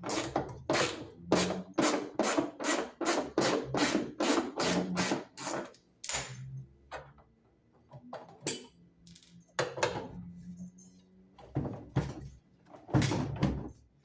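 Ratchet wrench being worked on the washing machine's 10 mm bolts: quick ratcheting strokes about three a second for the first five seconds, then a few separate strokes and knocks.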